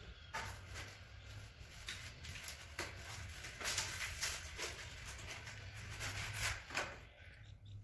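Irregular clicks, knocks and scrapes of an unplugged electric putty mixer being handled and its parts fitted on a tile floor, busiest in the second half, over a faint steady low hum.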